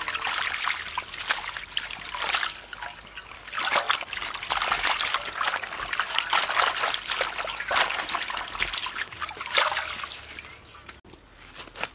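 Hands swishing and rubbing lettuce in a metal basin of water: repeated splashing and sloshing. Near the end the leaves are lifted out with water pouring off them, and the splashing dies down.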